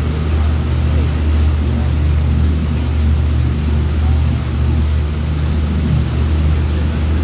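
Motorboat engine running steadily at cruising speed, a deep even hum, with water rushing in the churned wake.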